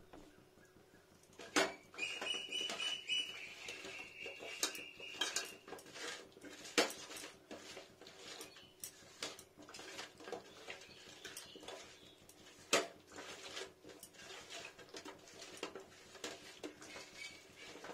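Hands mixing small whole fish with salt and turmeric in a steel plate: the fish and fingers keep clicking and tapping against the metal, with louder knocks about two, seven and thirteen seconds in. A steady high tone sounds for about three seconds early on.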